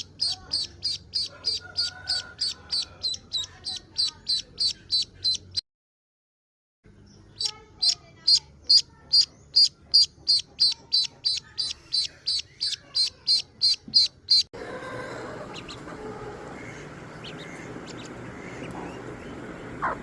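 Newly hatched duckling peeping: a fast, even run of high peeps, about three to four a second, broken by a second of silence about six seconds in. Near the end the loud peeping stops and a steady noisy background with only faint peeps takes over.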